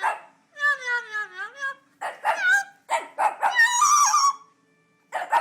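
A pet animal giving a series of drawn-out, wavering cries, about five in a row with short pauses between them, one of them about a second long.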